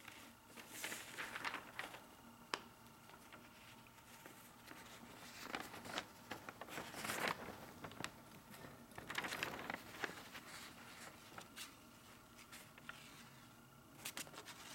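Sheet of Xuan rice paper being handled, making soft rustles in several short bursts, with one sharp tick about two and a half seconds in.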